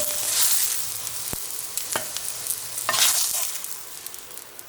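Food sizzling in a hot frying pan as fried eggs and Canadian bacon are plated, with a few sharp clicks and scrapes of a utensil against the pan. The sizzle swells twice and dies down near the end.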